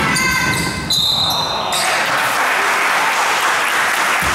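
Referee's whistle blown for about two seconds, holding a steady high note about a second in, over the noise of the gym. A basketball bounces once near the end.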